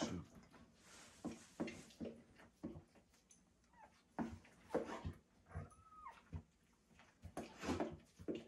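German shorthaired pointer tending a newborn puppy in a whelping box: irregular soft rustling of blankets and short licking sounds, with a thin, falling whimper about six seconds in.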